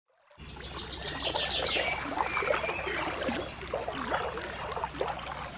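Birds chirping and calling over a shallow river flowing, fading in about a third of a second in.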